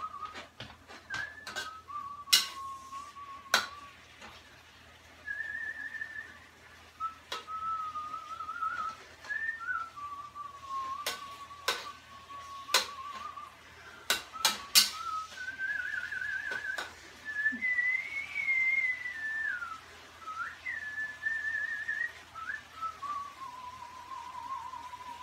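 A person whistling a slow, wandering tune with a wavering pitch, over sharp metallic clacks and scrapes of a spatula against a wok during stir-frying. The spatula clacks come irregularly, about a dozen of them, and are the loudest sounds.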